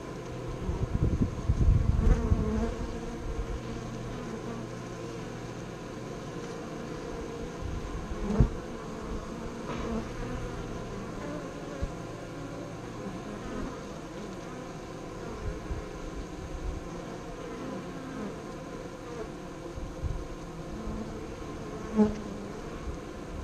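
Honeybees buzzing steadily as they fly in and out at the hive entrance close to the microphone. The buzz swells loudly about one to two seconds in, with a few sharp low thuds, one near eight seconds and one near the end.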